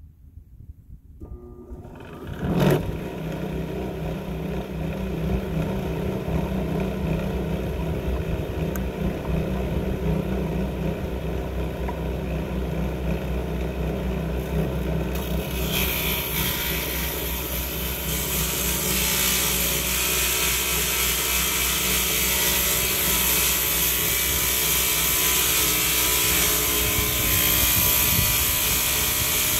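Homemade electric tie-slotting saw starting up about two seconds in and then running steadily with a motor drone. From about halfway on, a louder, rougher, higher noise joins it as the saw cuts the rail slots into wooden ties.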